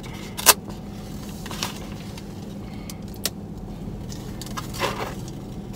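Steady low hum of an idling car engine heard inside the cabin, with a few short clicks and knocks from a foam drink cup being handled.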